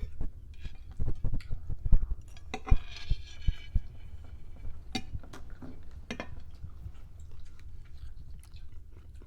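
Cutlery clinking on dinner plates and chewing at the table: scattered sharp clicks, with a few dull low thumps in the first four seconds.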